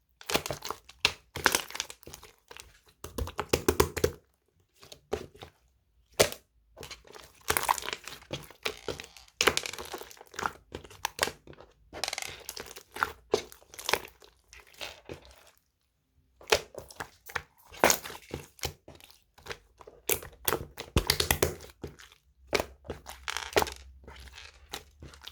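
Yellow slime being squeezed and pressed by hand, giving irregular bursts of clicks and crackles with short pauses between them.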